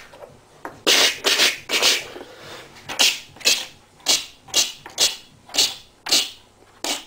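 A person making short hissing 'tsh' mouth sounds, about two a second in a steady march rhythm, as sound effects for a miniature figure being walked across the table.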